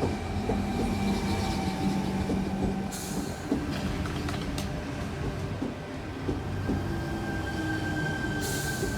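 Sydney Tangara electric train (set T20) running at the station, its wheels squealing in steady high tones over the rumble of the cars. Two short hisses come about three seconds in and near the end.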